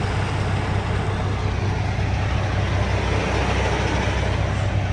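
Kenworth T680's Cummins diesel engine running with a steady low drone, heard from inside the cab.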